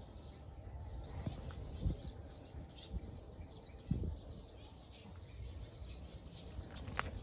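Small birds chirping repeatedly in short high calls over a low outdoor rumble, with a couple of dull low thumps about two and four seconds in.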